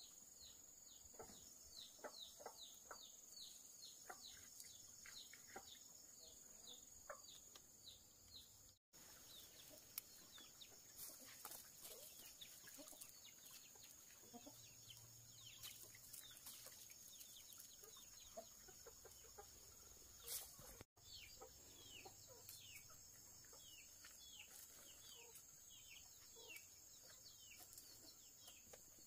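Faint chickens clucking and peeping, with many quick falling high calls several a second, over a steady high whine; the sound drops out briefly twice.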